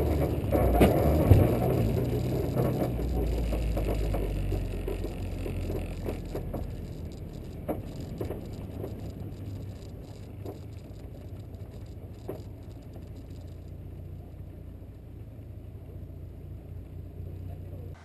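A car running, its engine and road noise loudest at first and fading gradually, with a few sharp knocks or rattles.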